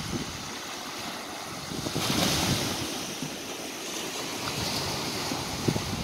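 Small sea waves breaking and washing over a rocky shore, with a swell of surf hiss about two seconds in. Wind buffets the microphone in low gusts, most strongly near the end.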